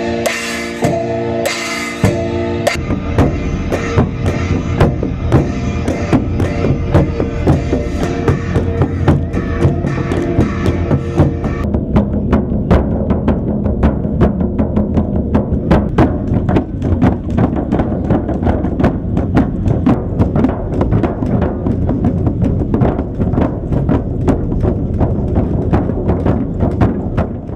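Live music driven by rapid drumming, many strikes a second, with held pitched notes over the drums in the first two or three seconds. About twelve seconds in the bright upper sound drops away, leaving the drums alone.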